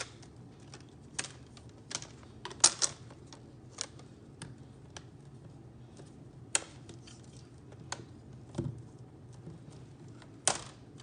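Irregular sharp clicks and taps of a hard plastic rugged tablet case as its parts are handled and pressed onto an iPad, with a duller knock near the end.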